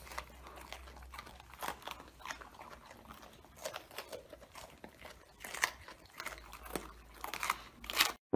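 Two golden retrievers, an adult and a puppy, chewing raw green bell peppers: irregular, crisp crunches as they bite into the peppers.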